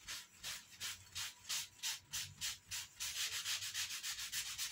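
Tissue paper rubbed briskly back and forth over a glued joint in thin laser-cut wooden panels, wiping away excess glue. Even scrubbing strokes about three a second, quickening to a faster, denser scrub about three seconds in.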